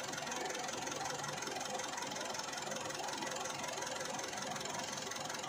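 Warm diesel engine idling steadily with a light clatter, while water is poured from a jug into a bottle funnel in the radiator filler neck.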